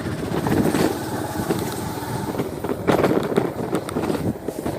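Moving vehicle: engine and road noise with irregular rattling and knocking, louder twice, briefly about half a second in and again around three seconds in.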